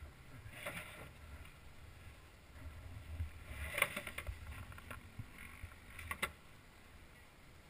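Muffled handling noise from a helmet-mounted camera in its housing as the helmet is shifted about: a low rumble with a few light knocks, about one, four and six seconds in.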